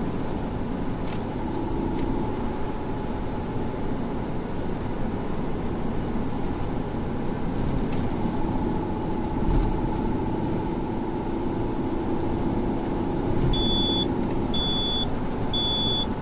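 Car driving at expressway speed: steady tyre and road noise with a faint constant hum. Near the end, three short high-pitched beeps about a second apart.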